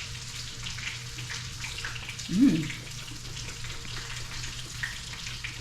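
Hot oil frying: a steady sizzle with fine crackles, over a low steady hum. About halfway through, a short voice sound rises and falls in pitch, like an 'mmm' while tasting.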